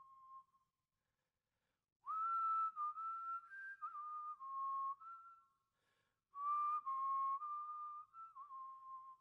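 A slow melody whistled in phrases: one phrase ends just after the start, and after a short silence two longer phrases begin about two and about six seconds in, each note a clear pure tone with a breathy start.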